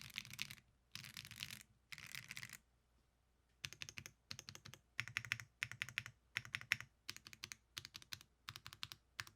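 Typing on a Zoom75 mechanical keyboard with WS Red linear switches, a polycarbonate plate and PBT keycaps. Three quick runs of rapid keystrokes, a pause of about a second, then short clusters of a few keystrokes each, about two clusters a second.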